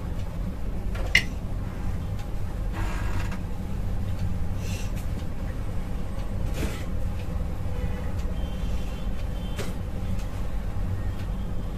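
A door being handled as someone comes into the room: a sharp click about a second in, the loudest sound, then a few short rustles and knocks over a steady low hum.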